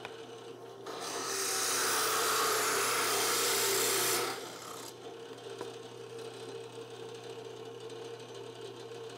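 Drill press plunging a half-inch tenon cutter into an end-grain wooden blank, a loud even rasping cut that starts about a second in and lasts about three seconds. The press's motor keeps up a steady hum before and after the cut.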